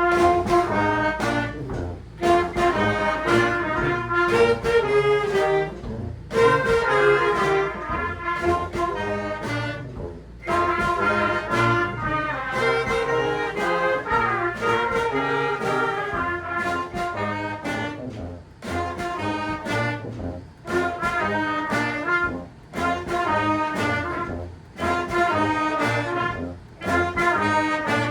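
Brass band playing a tune in short phrases over a low bass line.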